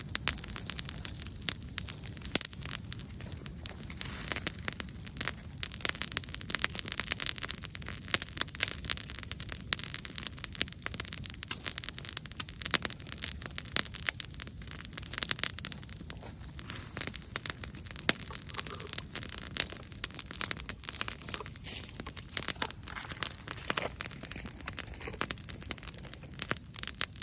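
Wood bonfire crackling: a steady, dense stream of small pops and snaps.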